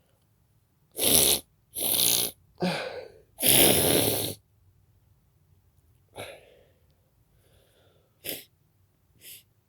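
A person sneezing four times in quick succession, loud and explosive, with the last one the longest. Three much quieter short breathy sounds follow later.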